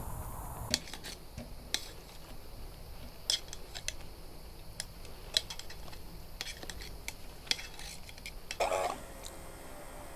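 Metal cutlery and cookware clinking and tapping in a scattered run of about a dozen sharp clinks. A brief louder noise comes near the end.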